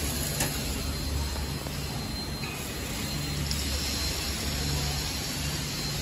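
Soontrue flow-wrap packing machine running: a steady mechanical hum with a low drone that swells and fades about once a second. There is a single sharp click about half a second in.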